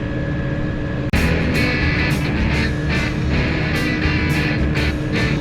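A tractor engine running steadily, cut off suddenly about a second in by rock music with guitar and a steady beat.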